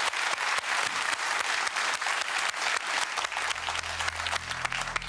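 Studio audience applauding a low £10 box being revealed, the clapping thinning toward the end. A low, steady music drone comes in underneath about three seconds in.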